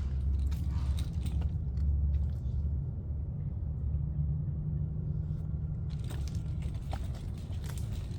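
Footsteps on a woodland trail: scattered crunches and snaps of leaf litter and twigs underfoot over a steady low rumble on the microphone.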